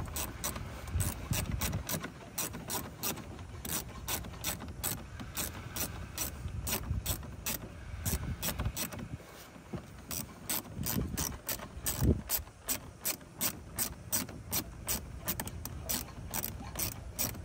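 Ratchet with a 7 mm socket clicking in uneven runs of sharp clicks, a few a second, as the handle is swung back and forth to undo a small dashboard side bolt.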